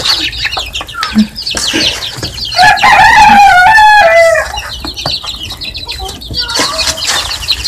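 Baby chicks peeping busily, many short high chirps. About two and a half seconds in, one long drawn-out call rises and then falls for nearly two seconds, louder than the chirping.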